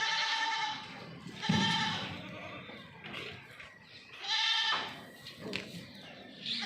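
Goats bleating: three loud, quavering bleats, at the start, about a second and a half in, and a little after four seconds, with fainter calls between.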